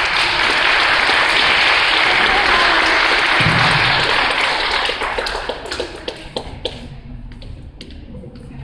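Audience applauding: steady clapping for about five seconds that then thins to a few scattered claps and dies away.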